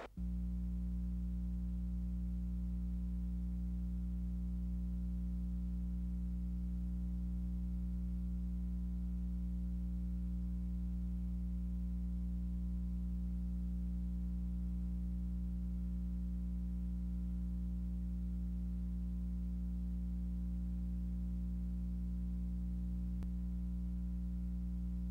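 A steady low hum made of many evenly spaced tones that does not change at all, starting abruptly.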